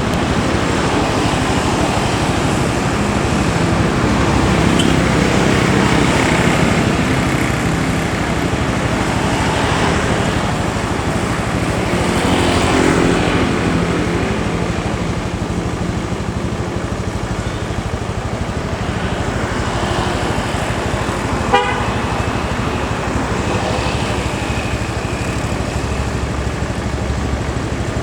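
Basuri multi-tone telolet horn on a Scania K410 bus playing its melodic, changing toots over the running bus and road noise. A single sharp click comes about three-quarters of the way in.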